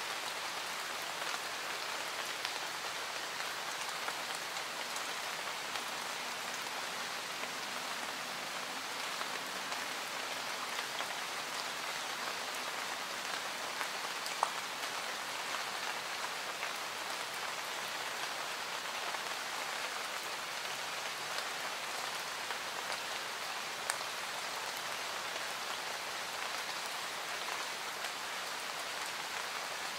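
Steady rain falling, from an added rain-sounds ambience track, with a couple of single sharp ticks about halfway and two-thirds of the way through.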